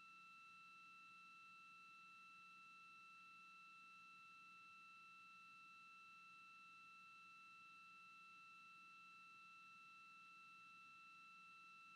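Near silence with a faint, steady electronic tone: a high whine with fainter higher tones above it, over a low hum, unchanging throughout.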